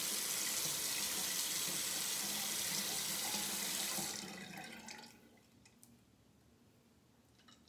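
Bathroom sink tap running in a steady stream, shut off about four to five seconds in. After it stops, a few faint ticks of a safety razor drawn over stubble.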